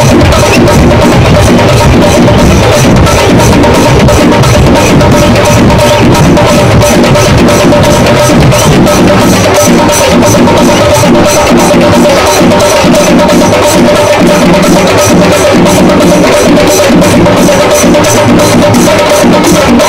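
Loud percussion-led music: fast, evenly repeating drum and wood-block strokes over a few held tones.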